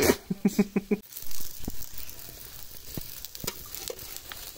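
Kai holige, a coconut-and-jaggery stuffed flatbread, frying in ghee on a flat tava: a steady, faint sizzle from about a second in, with a few light clicks.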